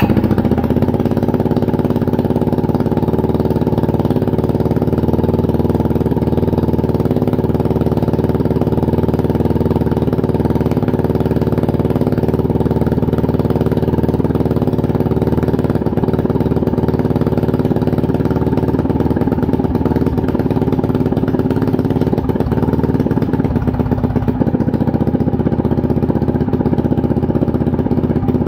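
A mini bike's 212cc single-cylinder four-stroke engine running steadily at idle, just after a cold start with the choke on. This is its first run with the carburetor moved onto a new intake adapter.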